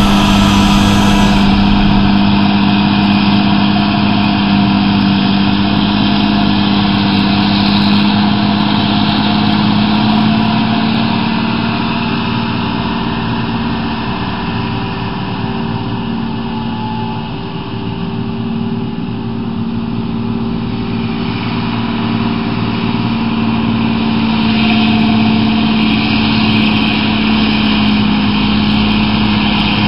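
John Deere self-propelled forage harvester at work chopping maize, with tractors pulling silage trailers alongside: a steady machine drone holding one constant pitch. It eases off somewhat around the middle and grows louder again near the end.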